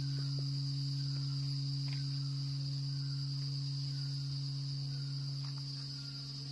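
A large metal bell ringing out after a strike: a steady deep hum with a higher overtone, slowly fading, over a steady high-pitched tone.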